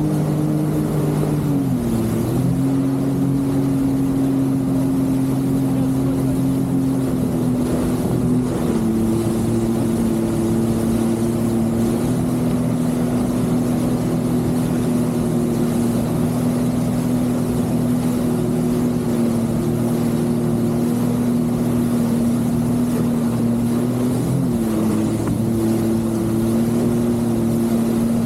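Jet ski engine running steadily at cruising speed, its pitch dropping as it eases off about two seconds in, then dipping briefly near the end before picking back up.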